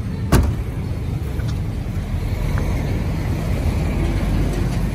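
Steady low rumble of wind buffeting the microphone, with one sharp knock about a third of a second in.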